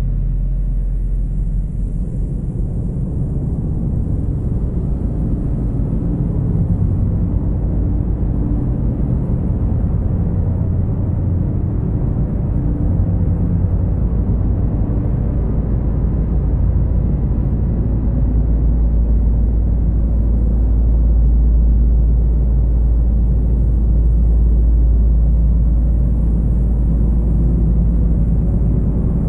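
Dark ambient drone music from guitar, synths and electronics: a dense, low rumbling drone of sustained deep tones that swells slightly toward the end.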